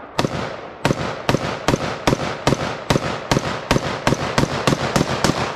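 AR-style semi-automatic rifle fired rapidly, about fourteen shots at two to three a second, each crack followed by a short echo.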